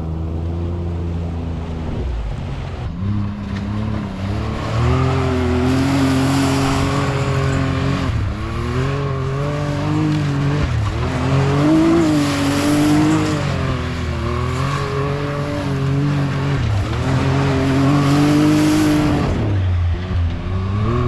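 Can-Am Maverick X3's turbocharged three-cylinder engine revving up and down over and over as the side-by-side is driven through a mud pit, with a few bursts of hiss along the way.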